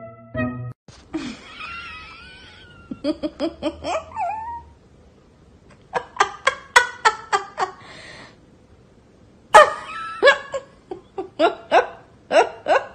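A person laughing in several runs of quick, rhythmic bursts with short pauses between. A wavering high-pitched sound comes about a second in, before the first run.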